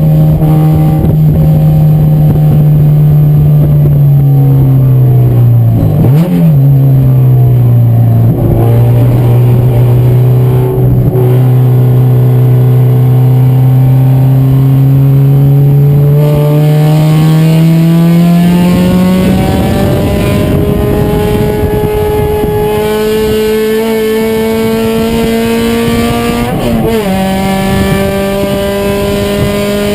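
Race car engine running hard, its pitch rising and falling steadily as the revs change. The revs dip sharply twice in the first third, then climb in one long sweep through the middle, with a brief break near the end.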